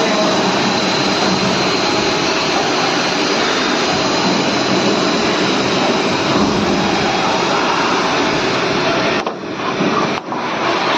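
CNC machine running, a loud steady whirring machine noise that dips briefly twice near the end.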